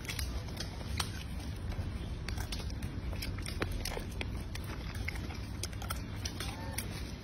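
A macaque biting and chewing nuts, with many short sharp clicks scattered irregularly through it, over a steady low rumble.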